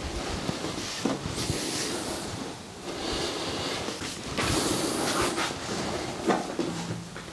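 Rustling of clothing and the padded treatment table, with a few soft knocks, as a patient's leg is lifted and stretched backwards while she lies face down. The rustling is loudest about halfway through.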